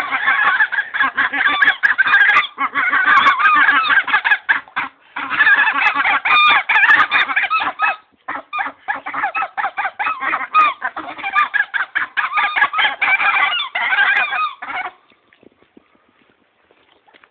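Several wild geese honking loudly, their calls overlapping almost without a break, until they fall quiet about fifteen seconds in.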